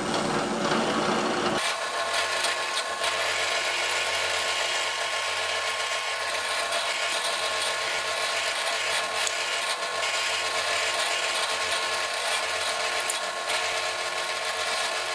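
Drill press motor running steadily while a 1/4-inch Forstner bit bores shallow holes into a hickory block.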